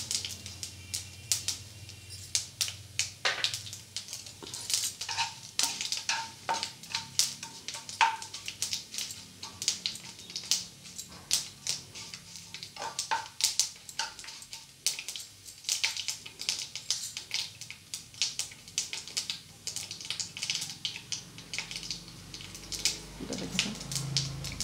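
Mustard and cumin seeds crackling in hot oil in a kadai: a dense, irregular stream of sharp pops as the tempering fries with dried red chillies and curry leaves.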